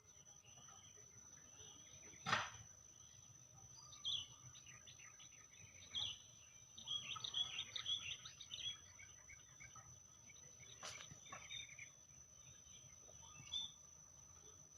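Songbirds chirping in quick scattered bursts, busiest in the middle, over a faint steady high-pitched whine. Two sharp knocks cut in, the louder about two seconds in and another about eleven seconds in.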